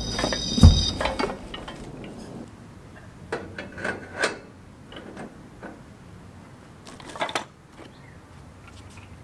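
Metal caster wheel being handled and fitted into the top of a Blackstone griddle stand's square steel leg: a loud thump about a second in, then scattered sharp metal clicks and knocks. Background music fades out at the start.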